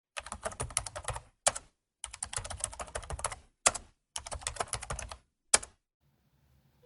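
Computer keyboard typing: three quick runs of key clicks, each ending with a single louder keystroke.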